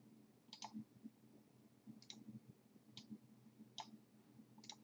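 Faint computer mouse clicks, a quick pair about half a second in and then single clicks roughly every second, over a low steady room hum.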